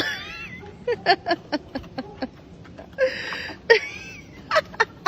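A dog hauling a stick up steps: a run of quick, sharp knocks at about four a second as the stick bumps along, with a short wavering high whine at the start and a brief scrape about three seconds in.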